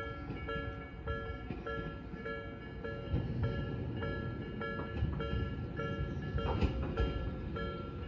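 Japanese level-crossing electronic warning bell of the slow-tempo Nikko type, a repeated multi-tone ding about twice a second, signalling an approaching train. A low rumble builds underneath from about three seconds in.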